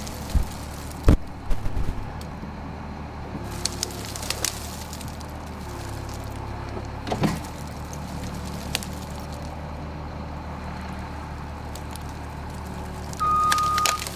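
Compact track loader's diesel engine running steadily, with several sharp knocks and cracks as its bucket pushes into ice-laden fallen branches. Near the end its reversing alarm starts beeping as it backs up.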